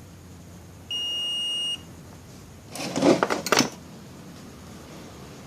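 A digital multimeter gives one steady high beep lasting just under a second, as in a continuity or diode test. About two seconds later comes a brief loud clatter of clicks and rattles.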